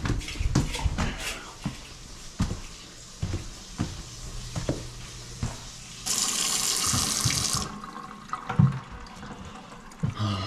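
Water running from a tap to test a freshly cleared drain, with scattered knocks and clatter. About six seconds in the flow turns loud and rushing for a second and a half, then eases back.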